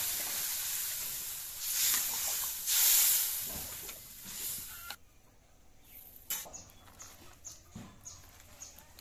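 Water poured into a hot wok of frying vegetables, hissing and sizzling loudly. The hiss cuts off suddenly about five seconds in, leaving a much quieter stretch with a couple of soft thuds from hands working wet clay and faint short high chirps.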